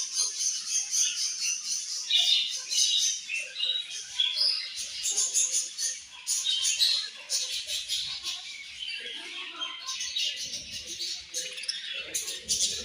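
A group of budgerigars chirping and chattering together, many short chirps overlapping without a break.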